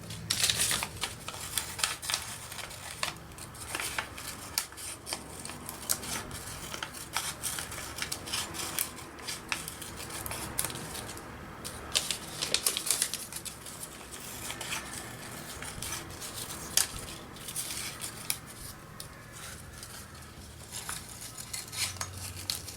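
Scissors snipping through paper again and again, a string of short crisp cuts.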